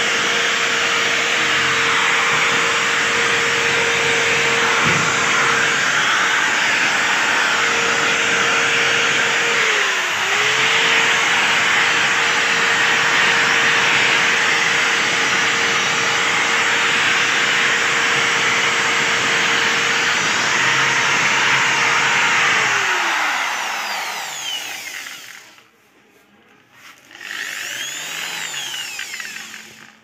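Electric drill with a rotary sanding attachment running steadily and scraping over a refrigerator's sheet-metal panel, sanding it down. Its pitch dips briefly about a third of the way in as it is pressed harder. It winds down near the end, then gives one more short spin-up and slow-down.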